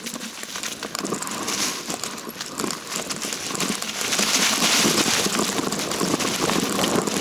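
Footsteps crunching and rustling through dry leaves and brush on a mountain trail: a dense run of small crackles that gets louder about four seconds in.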